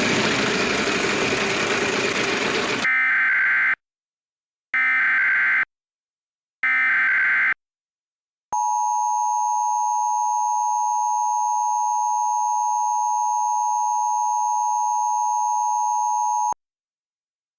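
Emergency Alert System broadcast tones. After about three seconds of static-like hiss come three short warbling data bursts of the SAME header, each about a second long with a gap between. Then the steady two-tone attention signal holds for about eight seconds and cuts off suddenly.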